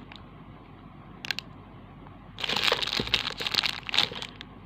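Plastic packaging crinkling and rustling as it is handled, starting about halfway through after a quieter stretch broken by one light click.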